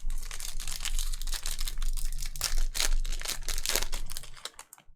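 Foil trading-card pack wrapper being torn open and crinkled, a dense run of crackling that stops abruptly near the end.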